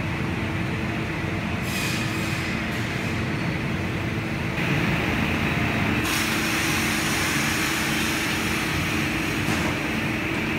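Brenta log bandsaw line machinery running: a steady mechanical hum and rumble with a low drone. It gets louder and brighter about five to six seconds in.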